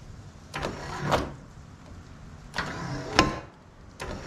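Motorized chute blocker flap on a walk-behind mower deck being moved closed over the discharge chute: two short mechanical runs, about a second in and about three seconds in, the second ending in a sharp click.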